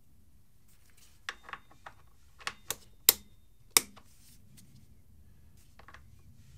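Torque wrench tightening the front fork axle pinch bolts: a run of short, sharp metallic clicks, the two loudest about three and nearly four seconds in.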